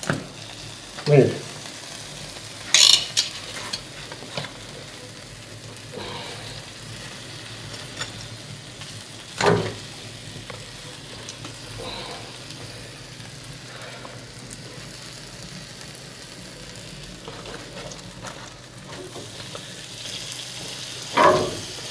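Roasted lamb sizzling steadily on an iron parrilla grate over hot embers. A few sharp knocks of a knife and fork against the grate sound through it, the loudest about three seconds and nine and a half seconds in, as the cooked lamb is cut apart.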